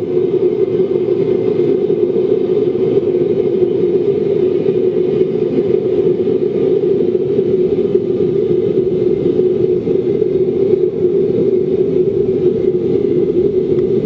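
Waste oil burner fed forced air by a 12-volt bilge blower, running with a steady rushing noise and a strong hum of middling pitch.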